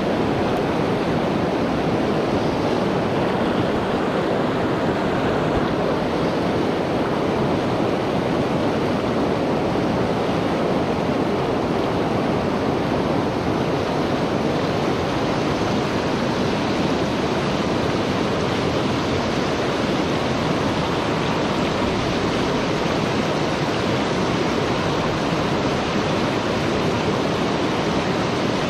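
Fast, shallow river riffle rushing over stones: a loud, steady wash of turbulent water that does not let up.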